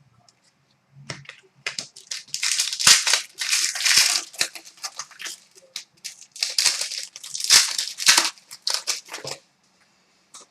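Trading card pack wrapper being torn open and crumpled, in two main spells of loud crinkling and rustling.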